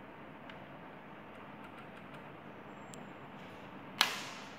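Faint steady hiss with a few small handling clicks, then one sharp click about four seconds in: a push button being pressed on the audio frequency oscillator's front panel to select the sine wave.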